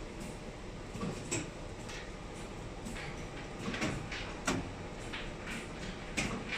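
Steady low hum of factory machinery with a handful of short, sharp clicks and knocks scattered through it, the loudest about four and a half seconds in.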